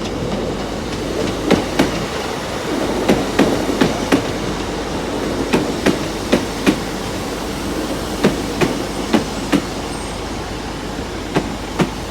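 Class 150 Sprinter diesel multiple unit rolling slowly into the platform, its wheels clicking over rail joints in quick pairs, a pair every second or two, over a steady rumble.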